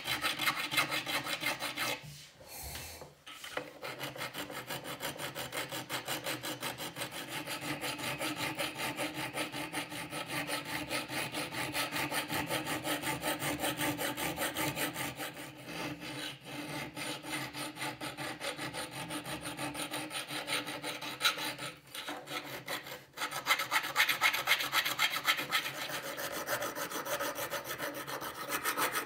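Hand file rasping against the steel of an old open-end wrench in rapid back-and-forth strokes, filing off rust and shaping the jaw. The filing pauses briefly about two seconds in and again for a moment around 22 seconds in.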